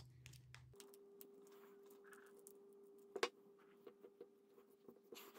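Near silence with faint, scattered clicks and taps and one sharper click about three seconds in, from a glass back cover being handled and pressed onto a smartphone's body, over a faint steady hum.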